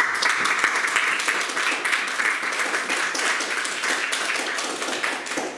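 Audience applauding: many hands clapping in a dense, steady run that dies away near the end.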